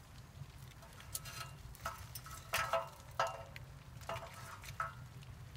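Rocket stove burning with a steady low rumble as its draft pulls hard, a sign the fire has caught and the chimney is drawing. Over it come several short clicks and knocks as sticks of wood are handled and fed into the steel feed tube, the loudest about two and a half to three seconds in.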